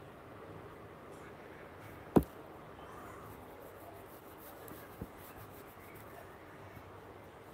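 Two short taps on a phone handset over faint room hiss: a sharp one about two seconds in and a much fainter one about five seconds in.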